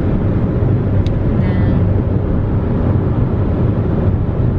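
Steady low road and engine rumble inside a moving car's cabin, with a faint click about a second in.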